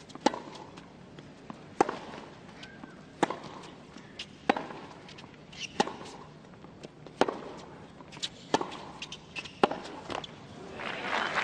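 Tennis ball struck back and forth by racquets in a baseline rally, about eight sharp pops roughly every one and a half seconds, with softer bounces between. Crowd applause breaks out near the end as the point finishes.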